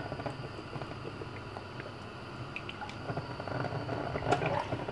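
Cooking oil being poured from a plastic bottle into a non-stick frying pan: a faint, low pouring and gurgling sound with small scattered clicks, more of them in the second half.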